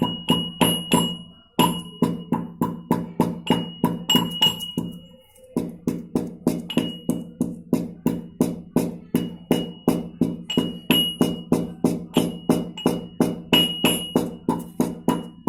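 Mortar and pestle pounding whole spices, about three strikes a second, each strike ringing. There are short breaks about one and a half and five seconds in.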